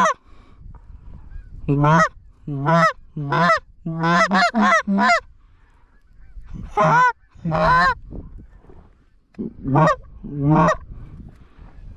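Loud Canada goose honks: about eleven two-note honks in groups of one to four, each a low note breaking sharply into a higher one.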